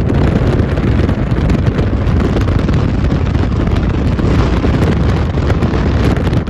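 Wind buffeting the microphone: a loud, steady rush of noise.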